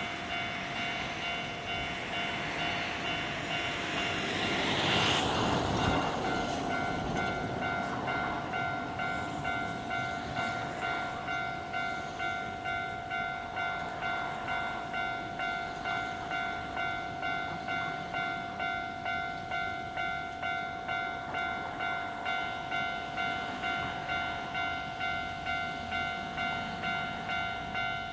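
Japanese railroad crossing's electronic alarm bell ringing steadily, about three strikes every two seconds, while a train passes; the train's noise swells around five seconds in and then fades under the bell.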